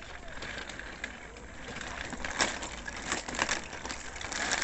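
Irregular crunching and clicking of walking along a gravelly dirt path, with rattling from wheels or feet on the grit. The clicks are densest and loudest about two and a half and three to three and a half seconds in.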